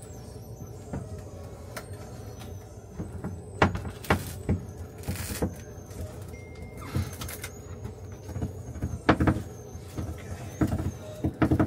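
Scattered metal knocks and clanks, with a lifting chain clinking, as a Yanmar 4JH110 marine diesel engine is lowered on the chain into a catamaran's engine bay. A steady low hum lies under it.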